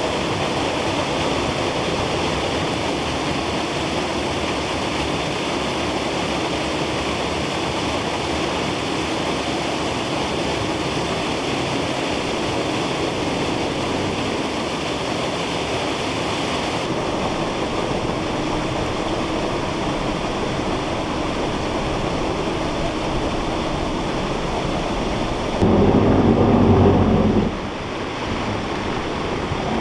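Steady rushing hiss of falling water. The upper hiss drops off suddenly about halfway through, and a louder low rumble lasts about two seconds near the end.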